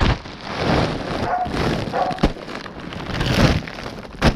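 Close-up rustling and crinkling of woven plastic big-bag fabric as someone climbs onto fertiliser bags, with a few sharp knocks and scuffs.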